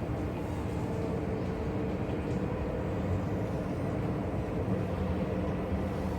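Hubsan X4 H107C+ micro quadcopter in flight, its small motors and propellers giving a steady, even hum with no change in pitch.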